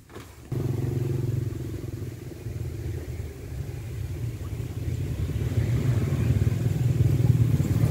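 Boat engine running with a steady low throb. It comes in abruptly about half a second in and grows gradually louder toward the end.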